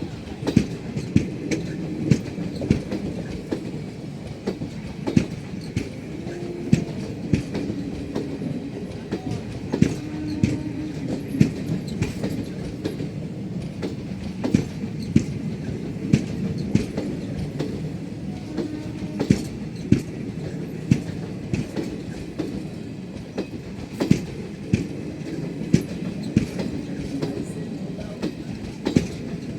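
Indian Railways passenger coach wheels running along the track: a steady rumble with frequent sharp clicks and knocks from the rail joints, and a faint steady hum underneath.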